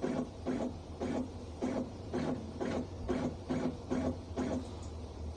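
Stepper motors of a DIY mini CNC machine jogging an axis in short repeated moves: a brief buzzing hum about twice a second that stops near the end.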